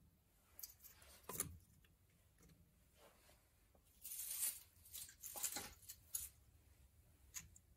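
Logs and pine cones being laid by hand in a wood-burning stove's firebox: a few short quiet scrapes and rustles of wood, with a knock about a second and a half in.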